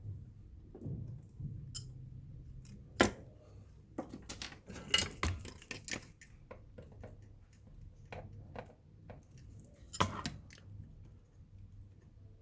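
Irregular sharp clicks and light knocks, the loudest about three seconds in and again about ten seconds in.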